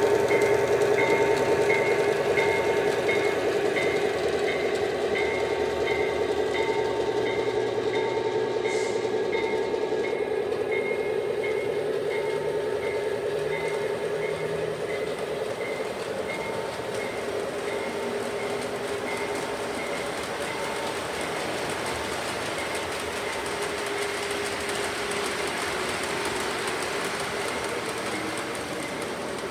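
O-gauge model diesel train running on three-rail track: a steady motor whine over the rumble and clatter of the hopper cars' wheels, fading gradually as the train moves away. A regular high-pitched beeping repeats throughout.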